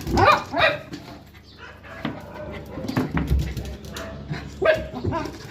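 A pet dog barking: two loud barks in quick succession at the start and another near the end.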